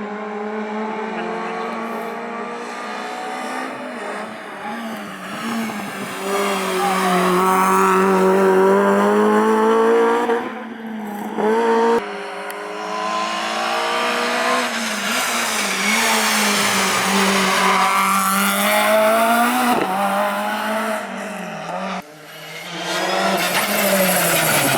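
Rally car engine driven hard, revving up through the gears and falling back on the lift, with sudden breaks in the sound about ten seconds in and again near the end.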